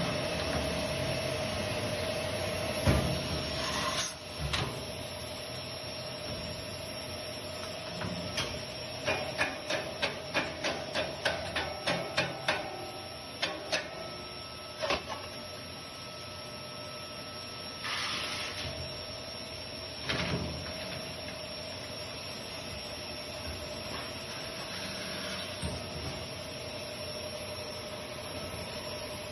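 Steady machine hum with a constant tone, from a gloved enclosure where catalytic converters are handled. About nine seconds in there is a run of quick knocks, two or three a second for about four seconds. Single knocks and a brief hiss are scattered elsewhere.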